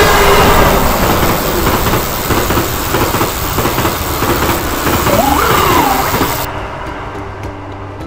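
Loud, noisy vehicle sound effect, like a passing vehicle, with a brief rising-then-falling tone about five seconds in; it cuts off suddenly about six and a half seconds in and the music returns.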